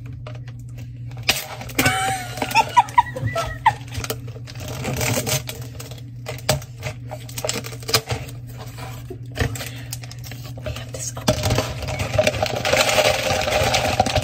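Ice cubes clinking and clattering in plastic convenience-store cups, with a sealed lid being peeled off. A denser, continuous rattle of ice near the end as the cups are tipped and shaken.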